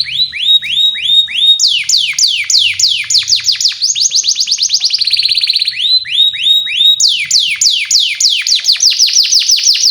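Male canary singing continuously in tours: runs of sharp, down-sweeping whistled chirps, several a second, broken by a short rapid trill about four seconds in.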